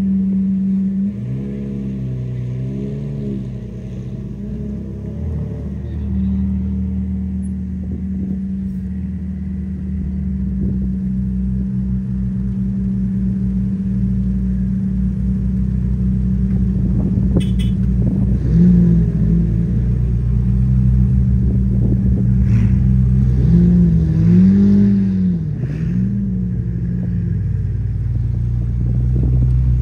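McLaren supercars' twin-turbo V8 engines running close by, a steady low drone broken by throttle blips that rise and fall in pitch, once near the start and twice more in the second half.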